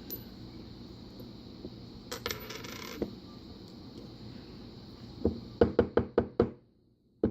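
Small metal lock parts clicking and clinking as a pin-tumbler challenge lock is unscrewed and taken apart. About seven quick sharp clicks come in a run after about five seconds, then a few more near the end.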